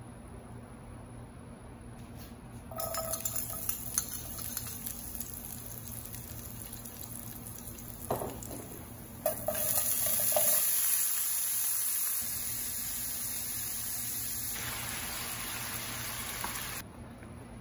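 Food frying in a pan: sliced garlic sizzling in hot oil with a few light clinks, then a much louder hissing sizzle from about nine seconds in as vegetables and liquid go into the pan. The sizzle cuts off abruptly near the end.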